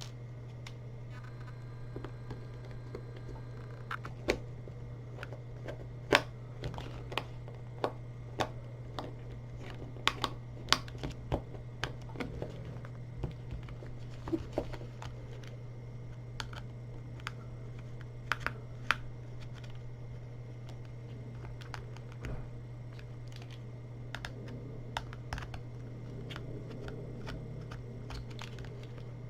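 Irregular small clicks and ticks of a Phillips screwdriver turning screws out of the ear cup of Bowers & Wilkins P5 headphones, thickest over the first two-thirds and sparser near the end, over a steady low hum.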